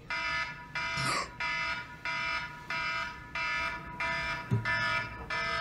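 An electronic alarm beeping steadily, about one and a half beeps a second, each beep a buzzy chord of several tones. A short rising sweep comes about a second in, and a low thud past the middle.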